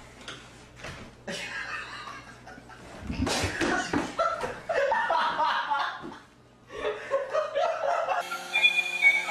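People laughing in loud bursts, after a few clicks in the first second; music starts near the end.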